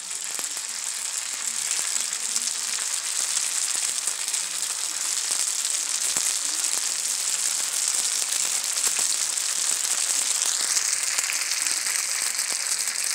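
Egg rolls frying in hot oil in a skillet: a steady crackling sizzle that builds over the first couple of seconds as the rolls are laid in, sealed side down.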